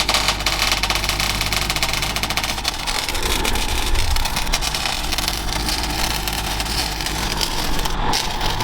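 An engine running steadily at idle, with a busy clatter of fine ticks over it; its low note shifts about three seconds in.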